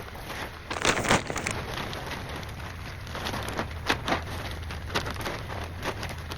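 Scattered clicks and knocks with a louder crackling rustle about a second in, from a temporary wood-and-plastic greenhouse being pulled apart by hand.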